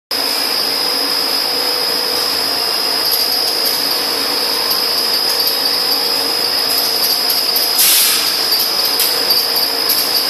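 High-speed CNC wire flattening machine running, its drive and flattening rolls giving a steady high whine over a lower steady hum and noise. A short hiss comes about eight seconds in, with a few light clicks.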